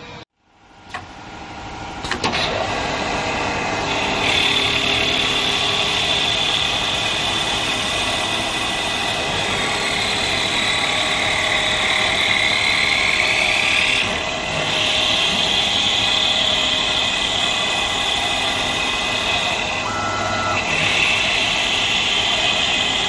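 Automatic wood lathe turning and cutting a wooden workpiece: steady machine running with a high cutting whine. The whine shifts in pitch around the middle and drops off briefly twice as the cut changes. It follows a moment of silence near the start.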